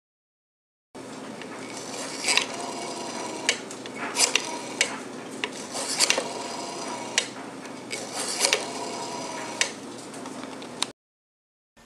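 Rotary telephone dial being dialed: the dial is wound round and let go several times, whirring and clicking as it spins back. The dialing starts about a second in and stops abruptly near the end.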